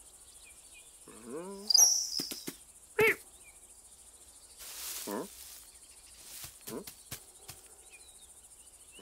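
A cartoon cat's short vocal sounds: a rising trill, a sharp loud call about three seconds in and a falling mew near the middle, set among faint high chirps and a few small clicks.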